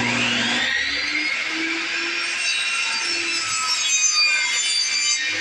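Electric power saw starting up, its motor whine rising over the first second, then running steadily as it cuts a wooden block.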